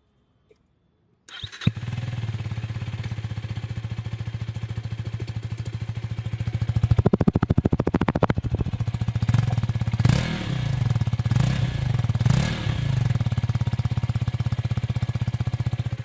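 KTM Duke 250's single-cylinder engine started up about a second in, then idling with an even pulse. It is revved once for a couple of seconds around the middle, then blipped several times before settling back to idle.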